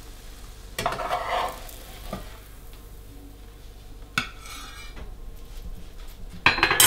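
Metal kitchen utensils scraping and clinking against a frying pan and plate: a few separate scrapes and knocks, the loudest clatter near the end, over a faint sizzle from the pan.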